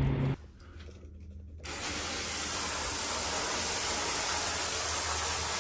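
Steady hiss of running water, starting about a second and a half in after a brief quiet gap.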